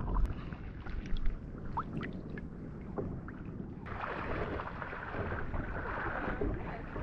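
Muffled underwater rumble with a few faint clicks, then, about four seconds in, a steady rush of shallow water lapping and splashing with light wind on the microphone.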